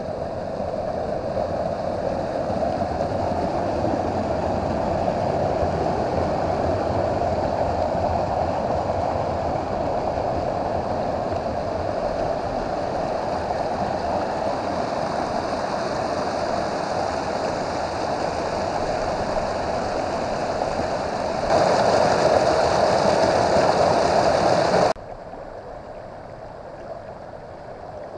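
Mountain creek rushing and splashing down a rocky cascade, a steady noise of water. About three-quarters through it gets louder for a few seconds, then drops off sharply to a quieter rush.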